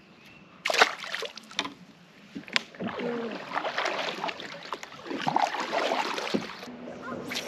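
Double-bladed kayak paddle dipping and splashing in slow creek water, with strokes from about three seconds in. A sharp knock comes about a second in and a click shortly after.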